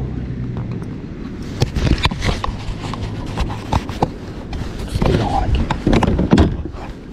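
Irregular knocks, bumps and rustling of a camera and gear being handled by hand aboard a kayak, with a steady low hum that fades out about a second in.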